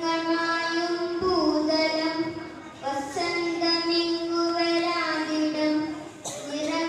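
A boy singing a Malayalam poem into a microphone in long, held notes: two drawn-out phrases with a brief break between them.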